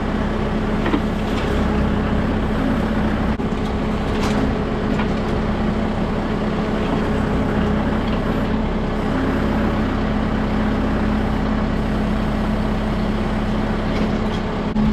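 Kubota M6060 tractor's diesel engine running steadily at a constant speed, with a few faint clanks.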